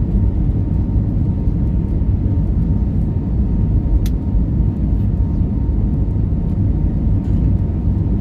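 Steady, loud low rumble of an Airbus A320neo's engines and rushing air, heard from inside the passenger cabin while the jet is airborne, with a faint steady whine and a single click about four seconds in.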